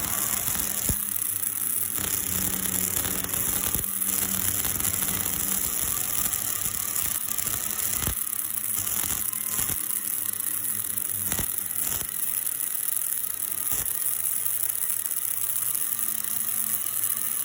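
Flux-cored MIG welding arc crackling and hissing steadily as a plate-to-plate bead is laid, with occasional sharp pops.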